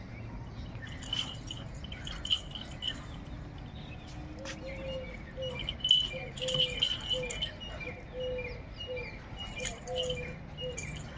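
Birds calling over and over in short, evenly repeated notes, with a string of lower notes about twice a second from about four seconds in. Scattered sharp clicks and rattles come from a dog tugging at a rope tied to a post with a metal rod.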